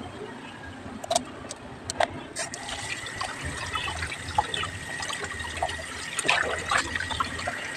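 Kitchen tap turned on about two and a half seconds in, water running and splashing into a steel bowl and over a tilapia being rinsed by hand, with a thin steady tone in the rush of the flow. Before the tap opens there are a few sharp clicks.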